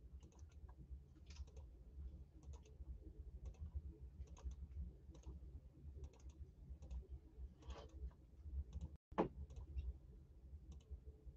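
Faint, irregular clicks from a computer keyboard and mouse, over a low steady hum.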